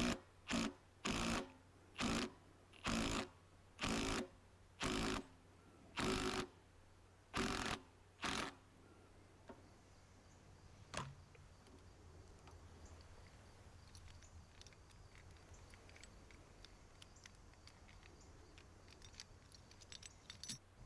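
Impact wrench fired in about ten short bursts, roughly one a second, running a bolt in or out. After that come faint scattered clicks.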